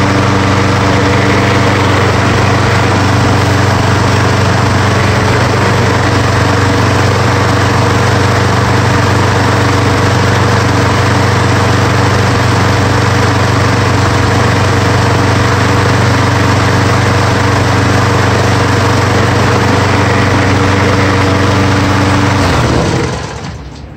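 Briggs & Stratton 6.75 hp single-cylinder engine on a Craftsman push mower, running steadily on its newly replaced ignition coil. About 22 seconds in it is shut off and spins down to a stop.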